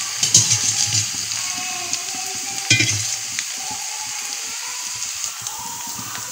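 Chopped onion, carrot, beans and green chilli sizzling in oil in a metal kadai while a flat metal spatula stirs and scrapes the pan. There are louder scrapes about half a second in and again near three seconds in.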